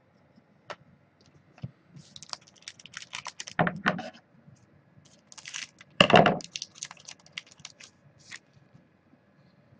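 Trading cards and clear plastic card holders being handled: scattered clicks and crinkling plastic, with two louder rustles about three and a half and six seconds in.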